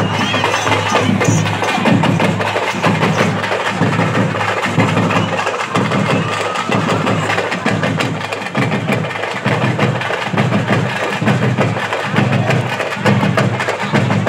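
Drums beating a fast, steady rhythm, with sharp strokes over a deeper repeating beat.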